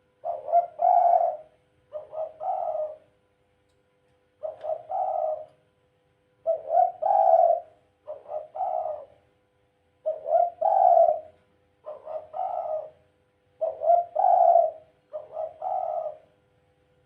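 A caged dove cooing over and over: about nine phrases, each a short note followed by a longer rolling coo, repeated every couple of seconds.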